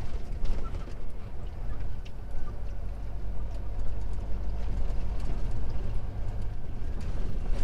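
Truck's diesel engine running with road and tyre noise, heard from inside the cab as the truck slows.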